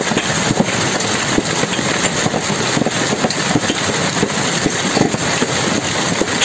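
Hailstorm: hailstones and rain pelting an awning and the pavement in a dense, steady clatter of many small impacts.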